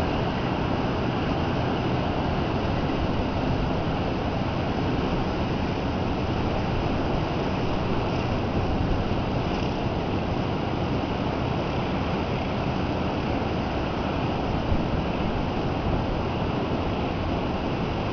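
Steady noise of storm surf breaking, mixed with wind buffeting the microphone.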